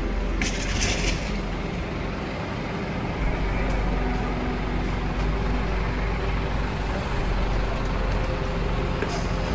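Heavy diesel engine of a parked fire engine running steadily, with a short burst of hissing air about half a second in.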